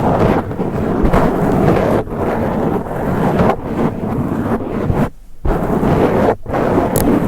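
Long fingernails scratching hard directly on a microphone, a loud, dense, rumbling scrape with two brief breaks about five and six seconds in.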